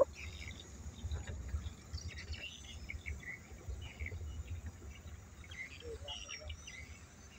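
Low, steady rumble of a car rolling slowly along a village road, with short high chirps of birds scattered over it.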